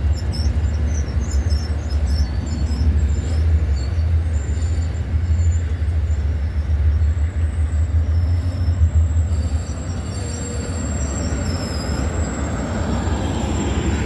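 Amtrak passenger train rolling slowly into the station, a heavy low rumble that eases after about nine seconds. A thin, high, steady squeal from the wheels and brakes comes in about halfway through and grows near the end as the train slows.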